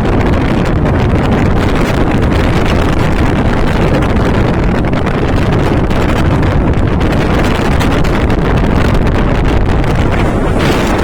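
Strong gale-force wind buffeting the microphone: a loud, steady rumble of wind noise without let-up.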